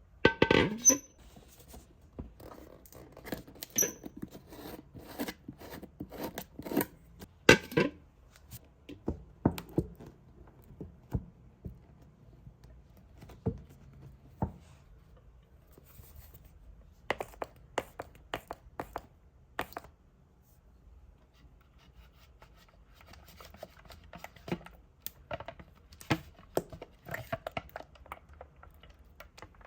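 Hands handling slime-making materials: tearing, scraping and scissor-like snips, with taps and knocks of objects set down, in scattered bursts with quiet gaps.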